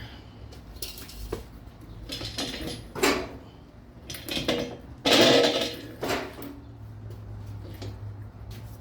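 Clicks, clinks and rustling of engine parts and hand tools being handled during a VG33E engine teardown, with a louder, noisier burst of handling about five seconds in that lasts about a second.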